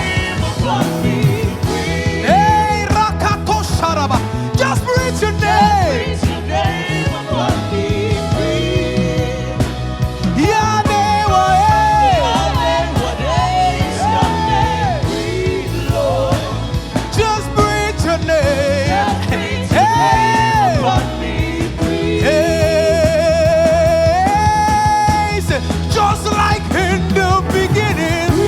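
Live gospel praise-and-worship music: a band with a steady bass and beat under a lead voice singing held notes that slide up and down, with vibrato near the end.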